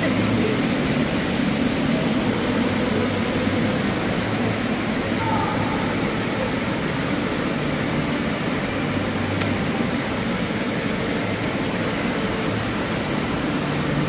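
Indoor fountain water pouring steadily down a tiled wall and splashing into its pool, a continuous rushing noise.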